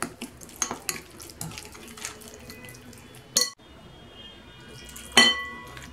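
A metal spoon scrapes and clinks against a glass bowl as it mixes a thick chermoula spice paste, and a little water is poured into the bowl from a small glass. About five seconds in, a sharp glass clink rings on for a moment.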